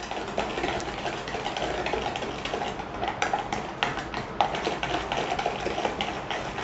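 Wire whisk beating a wet, runny cake mixture in a plastic bowl: quick, irregular clicking and tapping of the wires against the bowl, with the soft slosh of the liquid.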